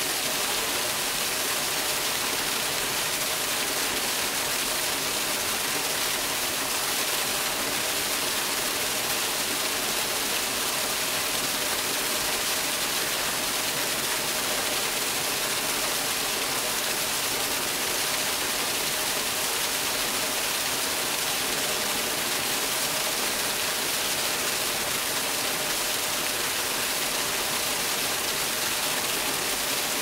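Artificial waterfall: a thin column of water falls into a shallow pool and splashes steadily, a constant, even rush of water.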